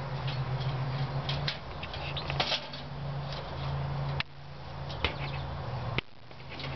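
Squirrel scrabbling about inside a wire live trap, making scattered scratches and light rattles on the mesh, over a steady low hum.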